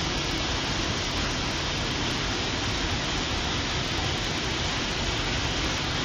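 Stainforth Force on the River Ribble: a steady rush of white water pouring over stepped limestone ledges into a pool.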